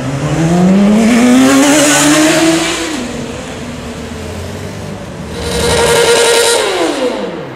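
Sport motorcycle accelerating hard, its engine note rising steadily for about three seconds, then fading. Near the end a sport bike is held at high revs in a burnout, rear tyre spinning with a hiss, and its revs fall away at the close.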